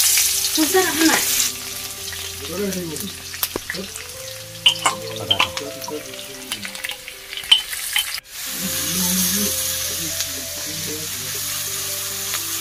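Hot oil sizzling in a steel kadai as food fries, with a metal spatula scraping and clicking against the pan while sliced onions are stirred. After a break about eight seconds in, steady sizzling comes back.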